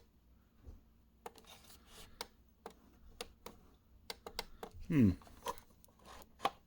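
Irregular light plastic clicks and taps from handling a Dymo LabelWriter 5XL label printer and its label roll, with one brief falling-pitched sound about five seconds in.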